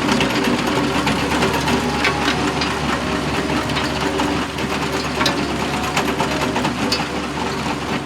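Excavator running steadily with a dense mechanical rattle as it pushes the dump truck along.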